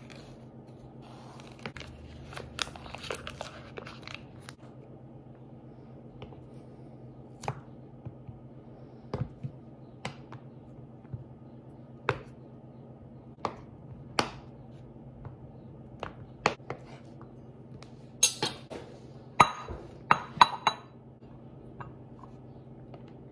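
Kitchen knife cutting a block of butter on a plastic cutting board: sharp knocks of the blade meeting the board every second or two, with some rustling of the butter's paper wrapper in the first few seconds. Near the end, a quick run of ringing clinks as the butter cubes and knife go into a ceramic bowl.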